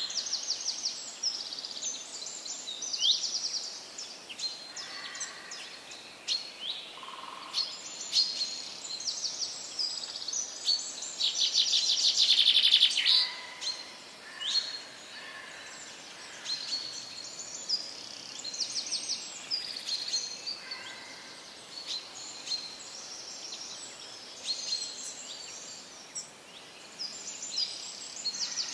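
Small birds chirping and twittering: many short, high calls and quick trills, with a louder burst of rapid chatter from about eleven to thirteen seconds in.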